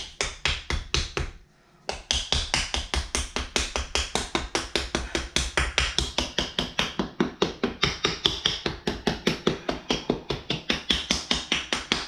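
Wooden olive-wood spatula used as a paddle, patting the outside wall of a soft stoneware-clay bowl to knock its shape inward. A fast, even run of dull taps, about five a second, with a brief pause about a second and a half in.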